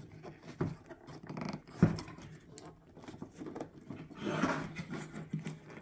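Hard plastic headlight housing being handled: a few light clicks and knocks, one sharper knock about two seconds in, and short stretches of rubbing and rustling against the hands.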